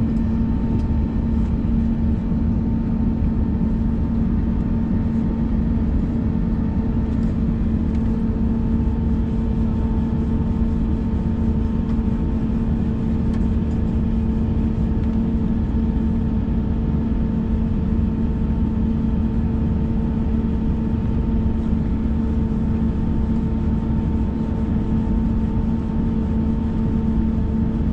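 Steady cabin drone inside an Airbus A321 waiting on the ground, its engines and air systems idling: a constant low rumble with an unchanging hum and fainter higher tones above it.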